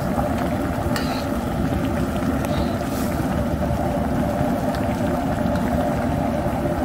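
Squash and greens soup boiling hard in a wide metal wok over an outdoor burner: a steady low rushing and bubbling, with a couple of faint clicks.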